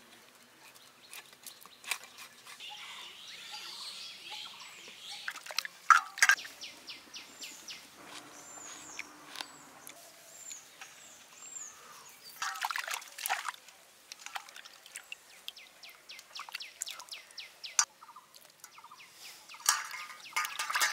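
Hand food-preparation noises: a blade scraping and cutting a fish on bare ground, then garlic skins being peeled off, heard as many short scrapes and clicks. A bird chirps repeatedly in the middle.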